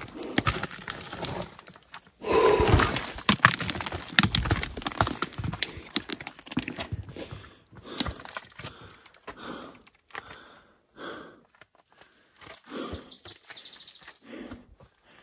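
Hiking footsteps scrambling up a steep rocky trail: boots crunching and scraping on loose rock, with many sharp clicks and knocks. A loud scraping rustle comes about two seconds in, and the steps thin out into separate scuffs and short puffs of hard breathing in the second half.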